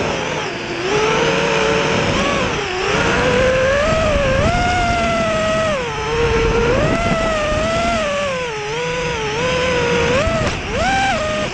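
Brushless motors and propellers of a 5-inch FPV quadcopter whining in flight, heard through its onboard camera, the pitch rising and falling constantly with the throttle over a rush of wind and prop wash.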